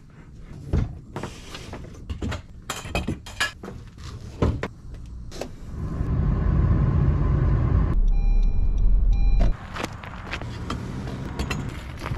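Clunks and knocks of a plastic fishing kayak being handled and slid into an SUV's cargo area. Midway comes a few seconds of steady low rumble, with two short electronic beeps in it, before the knocks resume.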